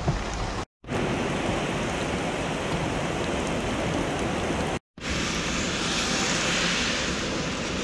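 Heavy rain hissing steadily on wet pavement and running water. The sound is cut off twice by brief silences, and after the second break it turns brighter and more hissing, like runoff streaming along a road edge.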